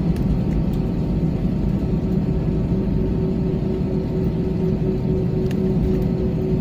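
Cabin noise of an Airbus A320 rolling slowly on the ground: a steady rumble of its jet engines at low power, with a low hum and a higher steady tone that comes in about two and a half seconds in.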